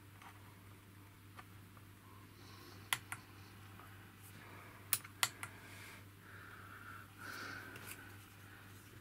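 Sharp little plastic clicks from a component tester's ZIF test socket and push-button as a toroid inductor is clamped in and the test is started: a pair of clicks about three seconds in and another pair about two seconds later, over a faint steady hum.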